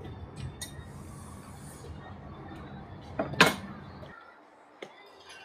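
Steady background rumble with a single sharp clink about three and a half seconds in; the background then drops away abruptly, leaving a few faint ticks.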